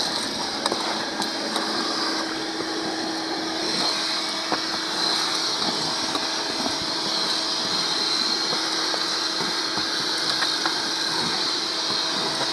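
Shop vacuum running steadily with a constant whine and hiss as its hose sucks debris off a boat floor, with a few faint clicks.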